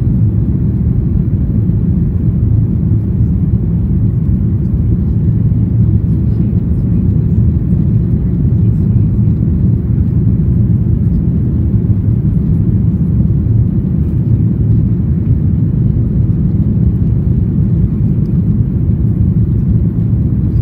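Steady low roar inside a Boeing 737-800's cabin on approach, heard from a window seat over the wing: the CFM56 jet engines and airflow over the extended flaps.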